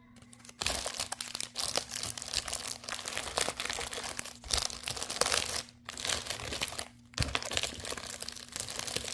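Small plastic bags crinkling and rustling as they are handled, in a dense crackle broken by brief pauses about 4.5, 6 and 7 seconds in.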